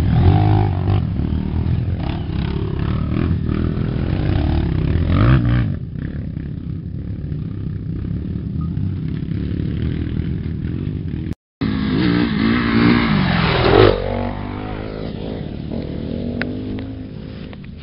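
Dirt-bike engines revving hard and unevenly, pitch rising and falling, as the bikes work up a steep rutted trail. The sound cuts out briefly about eleven seconds in, then an engine revs up and falls away again.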